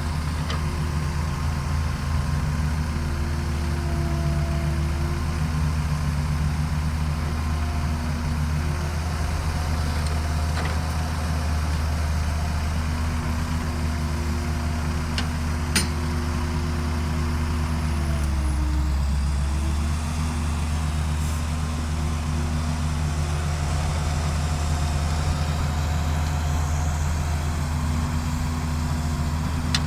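Heavy diesel engines of an excavator and dump truck running steadily, the engine note dipping briefly a little past halfway. One sharp click about sixteen seconds in.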